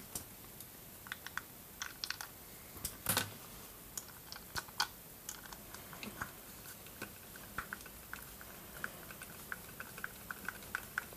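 Hand screwdriver driving a small screw into the plastic housing of a JBL Creature satellite speaker: scattered light clicks and ticks, with a quicker run of small ticks in the second half as the screw turns.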